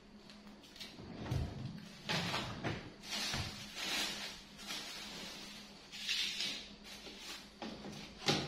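Thin plastic grocery bags rustling and crinkling in irregular bursts as groceries are unpacked onto a kitchen counter, with light knocks of items being set down and a sharper knock near the end.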